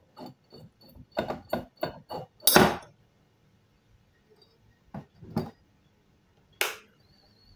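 Glass beer bottle clicking and rubbing as it is rolled by hand against a hot-wire cutter's resistance wire; about two and a half seconds in the bottle breaks apart along the heated line with a single loud knock. A few lighter knocks of the cut glass pieces being handled follow.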